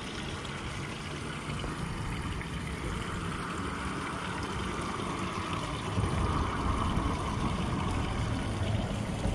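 Steady outdoor noise on a small fishing boat on a lake: a low wind rumble on the microphone with light water sounds, and a soft hiss that swells a little in the middle.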